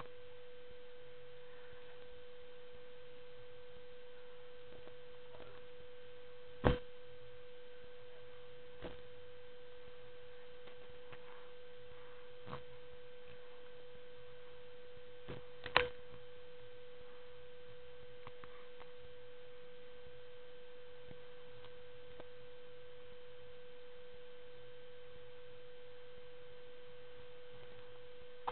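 A steady whine held on a single pitch, with two sharp knocks, one about seven seconds in and one about sixteen seconds in.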